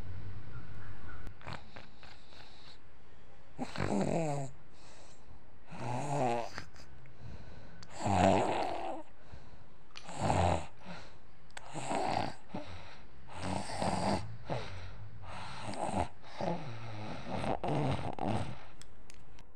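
Snoring during sleep, one snore about every two seconds, each a short pitched rattle.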